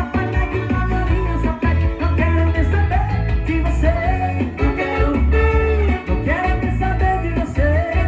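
A live band playing an upbeat song: guitar and a pitch-bending lead line over a heavy, pulsing bass.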